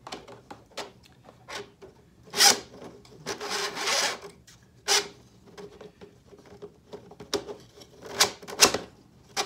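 A metal threaded rod being pushed through a row of 3D-printed PLA frames. Its threads scrape and click against the plastic, with a longer scrape about three seconds in and several sharp knocks of the plastic parts.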